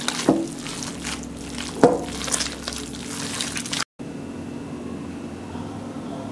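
Hands kneading a moist mixture of shredded pork, hogao and breadcrumbs in a bowl, with irregular soft wet noises and two louder squeezes, about a third of a second and two seconds in. The sound cuts off just before four seconds, leaving a steady low hum.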